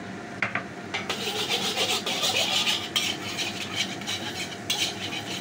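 Eggs sizzling in hot oil in a wok while a metal spatula scrapes and scrambles them against the pan in repeated sharp strokes; the sizzle sets in about a second in.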